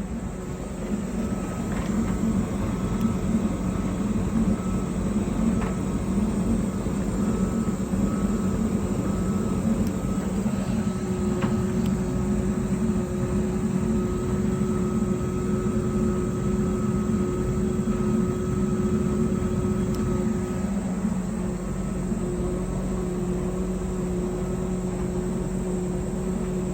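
Bauknecht TK872L heat pump tumble dryer running: a steady mechanical hum with a low drone and a faint higher whine. A second, higher hum joins about eleven seconds in, and there are a few light clicks. The dryer is not drying, and the owner wonders whether its heat pump has lost its refrigerant gas.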